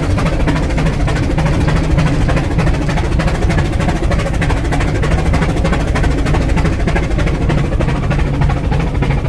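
Rack-railway steam locomotive puffing in a rapid, steady beat of exhaust chuffs as it climbs.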